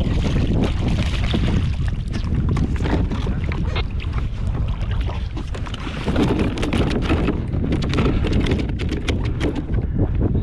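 Wind buffeting the microphone, with splashing and a rapid run of short knocks as a gaffed yellowfin tuna thrashes at the surface and is hauled onto a plastic kayak.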